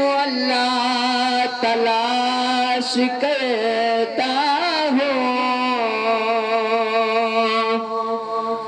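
A man's solo voice chanting an Islamic devotional recitation into a microphone, with no instruments. He sings in long, wavering melismatic notes and holds the last one for the final few seconds.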